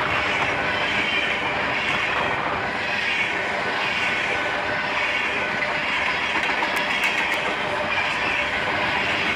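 Freight cars of a BNSF manifest train rolling past, with a steady rumble of steel wheels on rail and a clatter that swells about once a second as the wheel sets pass.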